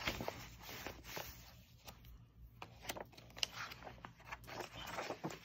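Paper pages of a softcover picture book being turned by hand: light rustling with a string of short crackles and flaps.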